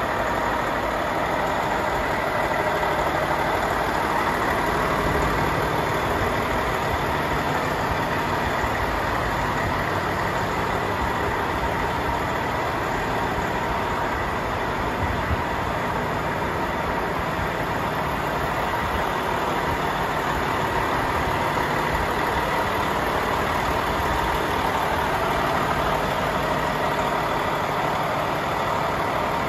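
Volvo FH 500 tractor unit's 13-litre six-cylinder Euro 6 diesel engine idling steadily.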